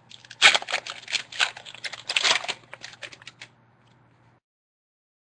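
Foil wrapper of a football trading-card pack crinkling and tearing as the pack is opened and handled, a quick run of crackles that stops after about three and a half seconds.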